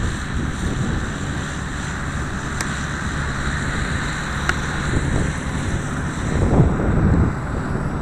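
Strong wind buffeting the microphone over the low hum of a T-Rex 450 Pro electric RC helicopter's rotor as it hovers low and sets down. A louder gust comes about six and a half seconds in.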